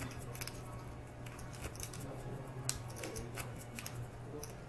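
Poker chips and playing cards being handled at a card table: irregular sharp clicks and light taps over a low steady hum.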